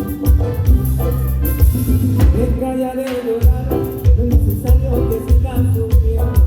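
A band playing a Latin-style song, with heavy bass notes, a steady drum beat and percussion, during a sound check.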